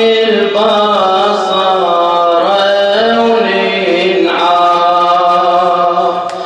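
A male radood chanting a mourning elegy in long, drawn-out melodic lines, sliding between held notes, with a short break for breath near the end.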